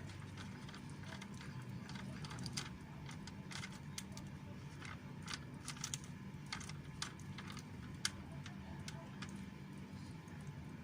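A cat chewing its food: irregular sharp crunching clicks, a few to several a second, the loudest about eight seconds in, over a steady low hum.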